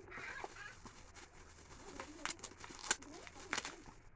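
A delivery package being opened and handled by hand: packaging rustling and crinkling, with a few sharp clicks or snaps, the loudest about three seconds in.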